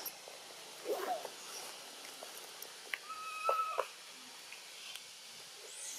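A few short animal calls: a brief rising-and-falling call about a second in, then a thin, steady high call lasting nearly a second around the middle.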